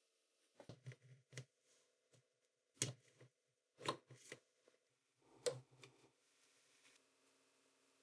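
Handling noises from the clipper's electric motor housing: a scattered series of short clicks and taps as pliers work at the carbon brush holders inside it.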